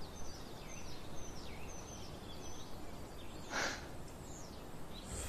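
Outdoor ambience of small birds chirping and twittering in short rising and falling calls, over a low steady rumble, with one brief louder noise about three and a half seconds in.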